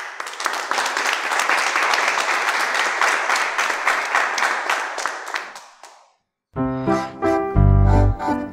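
Applause that fades out over about six seconds. After a short gap, a piano tune with a heavy bass line starts.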